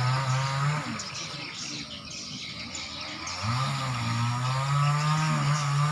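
A passing motor vehicle's engine runs, dies away about a second in, and comes back near the middle, rising in pitch and then holding steady. Swiftlets twitter in short high chirps behind it.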